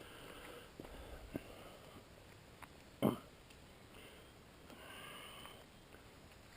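Quiet sniffing from a dog, with one short, louder sniff about three seconds in.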